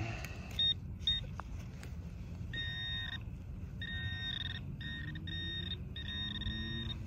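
Minelab Equinox 800 metal detector giving a high-pitched target tone as the coil passes over a buried coin: two short beeps in the first second, then from about two and a half seconds in, a run of longer steady beeps with short gaps between them. The clean, repeatable high tone is what the detectorist reads as a silver dime.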